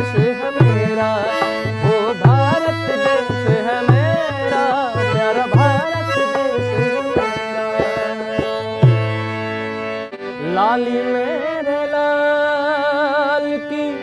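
Harmonium and dholak playing an instrumental passage, the dholak beating a steady rhythm under the harmonium melody. About nine seconds in the drum stops and the harmonium carries on alone with held, wavering notes.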